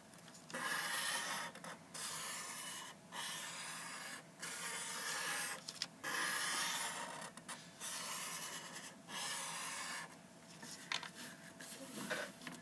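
Green felt-tip marker drawn across graph paper on a clipboard in straight strokes, each about a second long with brief pauses between, about seven in all; the last couple of seconds hold only faint light taps and rubs.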